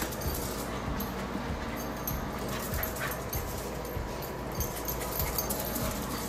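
A dog whimpering, over scuffling and light knocks.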